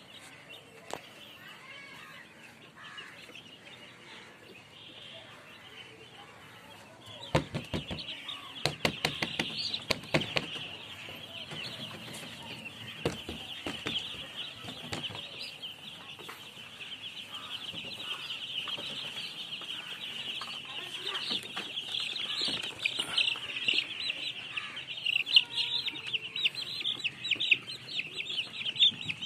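A crowd of baby chicks cheeping together in a dense chorus of short, high peeps, which grows much louder about a quarter of the way in. A few sharp knocks sound among the peeps around that point.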